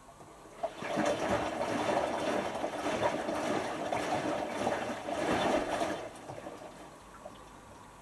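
Hotpoint washing machine in the cool-down phase of a 90 °C cotton wash: water rushing and sloshing in the drum, starting shortly after the beginning and stopping about six seconds in.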